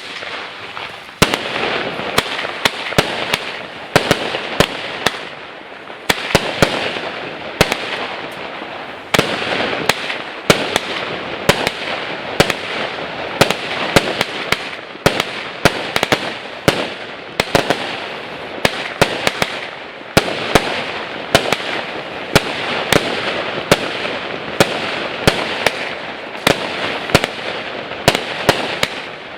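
An 81-shot 0.8-inch firework cake firing: a rapid series of sharp launch pops, about two or three a second, over a continuous hiss and crackle.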